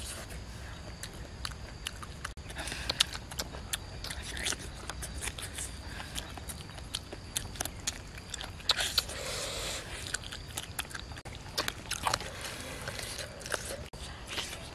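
A person biting and chewing roasted pig's head meat, with many short sharp crunches and mouth clicks.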